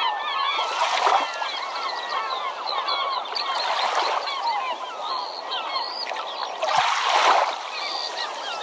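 A flock of birds calling over one another in many short chirps and squawks, with two louder rushes of noise, about a second in and about seven seconds in.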